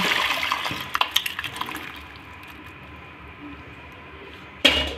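Boiled whole brown lentils and their cooking water poured into a kadhai of fried masala, splashing for about two seconds with small clinks of the pan, then quieter. A short, loud knock near the end.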